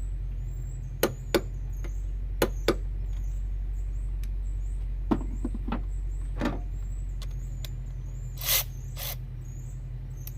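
Sharp clicks from hand tools being worked on a bolt, mostly in pairs, then two short hissing bursts near the end, over a steady low hum.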